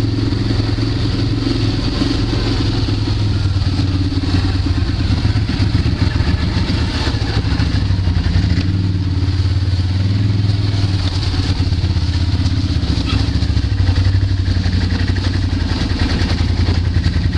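ATV (quad bike) engines running steadily as the machines ride along a dirt trail, with no big revs.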